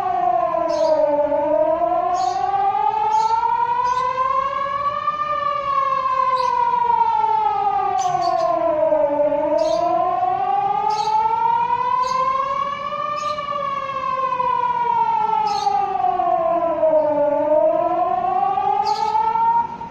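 Emergency public warning siren sounding in a test, a slow wail that rises and falls about every eight seconds. It cuts off suddenly near the end.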